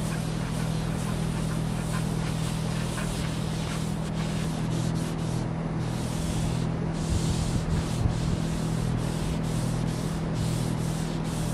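A hand-held pad rubbed back and forth over a flat wooden tabletop in quick repeated strokes, a dry rasping scrub. A steady low hum runs underneath.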